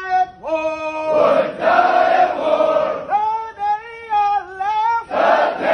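Military marching cadence sung call-and-response: a drill sergeant sings each line alone, and the marching platoon answers in unison. The solo lines come at the start and again in a long held phrase midway, and the group's shouted replies come about a second in and near the end.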